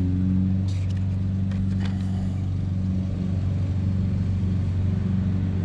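A motor running steadily, a low even drone with no change in pitch. Two faint light clicks come in the first two seconds.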